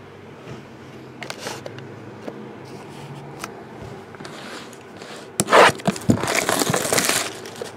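Quiet handling of a sealed trading-card box, then, about five seconds in, loud crinkling and tearing for about two seconds as its packaging is torn open.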